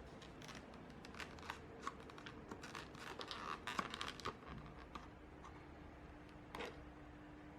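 Faint crinkling and rustling with scattered light clicks and taps, thickest between about one and four and a half seconds in, then one sharper tap near the end: hands handling small laptop parts and plastic.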